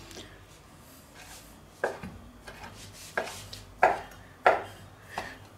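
Chef's knife chopping cooked chicken on a wooden cutting board: a handful of irregular knocks of the blade on the board, starting about two seconds in.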